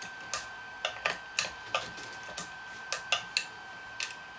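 A thin scraper blade worked under a 3D-printed ABS part on a glass print bed, making about a dozen sharp, unevenly spaced clicks and taps as the print is pried loose.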